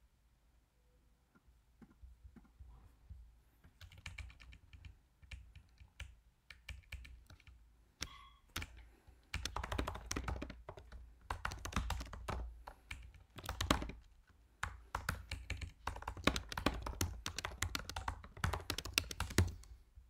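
Typing on a computer keyboard: a few scattered keystrokes at first, then rapid runs of typing in bursts from about halfway through.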